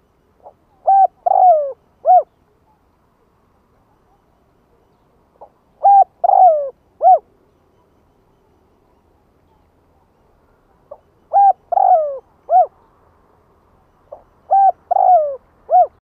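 Spotted dove cooing: four phrases, each a faint short note followed by three coos, a short one, a longer one that falls in pitch, and a short one, repeated every four to five seconds. It is a decoy bird's call, used to draw in wild doves.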